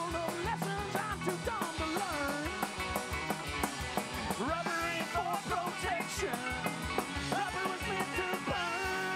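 Live rock band playing: two electric guitars over a drum kit with a steady beat.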